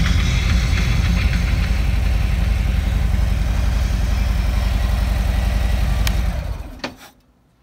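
Harley-Davidson CVO Street Glide's Milwaukee-Eight 117 V-twin idling steadily, then switched off about six seconds in, running down to quiet within half a second.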